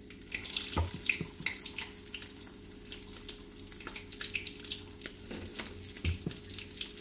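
Shrimp-stuffed güero chiles frying in hot oil in a frying pan: a steady sizzle full of small pops and crackles. Two low thumps come about a second in and near the end.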